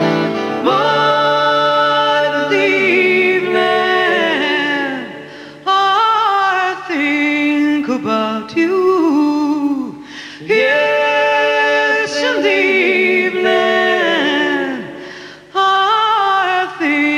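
A woman singing a slow song in phrases with short breaks between them, over sparse backing of sustained accordion chords and acoustic guitar.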